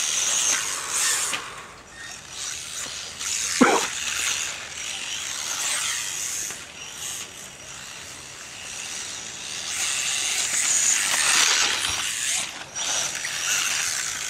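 Team Associated RC18T 1/18-scale RC truck with a Castle Mamba brushless power system driving on dirt: a high-pitched motor and drivetrain whine that swells and fades with the throttle. About three and a half seconds in, a quick sharply falling whine is the loudest moment.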